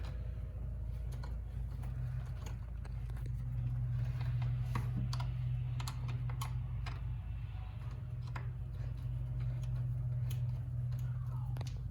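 Scattered light clicks and taps of plastic intake parts and a clamp being handled and pushed together as a cold air intake tube is fitted onto a throttle body, over a steady low rumble.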